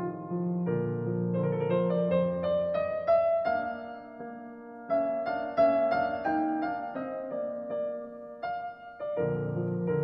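Background piano music: a gentle piece with runs of notes climbing upward, dipping softer just before the middle, with the low accompaniment returning near the end.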